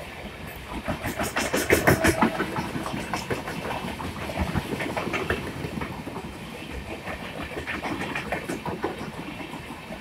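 LHB passenger coaches of an express train passing at full speed: a steady rush of wheels on rail with rapid clattering clicks over the rail joints, loudest about two seconds in.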